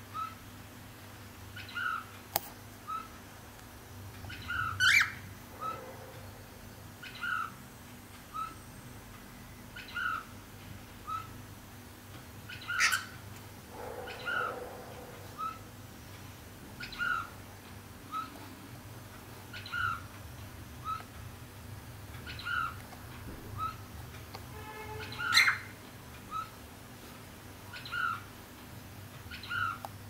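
Cockatiel calling: a short chirp repeated about every second and a half, with three louder, sharper calls about five, thirteen and twenty-five seconds in.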